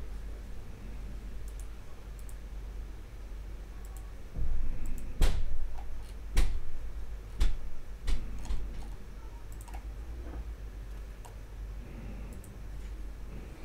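Scattered sharp clicks, with several louder ones bunched between about four and nine seconds in, over a low steady hum.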